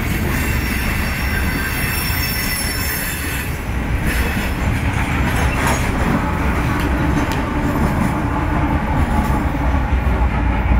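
Slow, heavily loaded coal train's steel-wheeled hopper cars rolling past with a continuous rumble. About halfway through, the trailing pusher locomotive, a GE AC44CW diesel-electric, passes and its engine joins the wheel noise.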